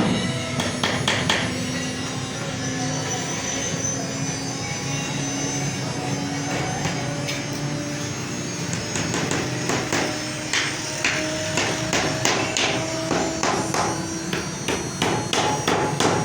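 CNC router milling wood: a steady machine hum with slowly shifting tones, under many sharp knocks and clicks that grow frequent in the second half.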